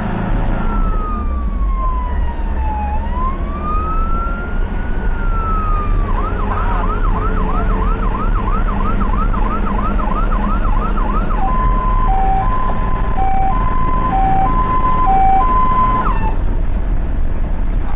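Ambulance's electronic siren running through its patterns: a slow wail falling and then rising, then a fast yelp of about three sweeps a second, then a hi-lo two-tone that cuts off about sixteen seconds in. Steady engine and road rumble runs underneath, heard from inside the ambulance's cab.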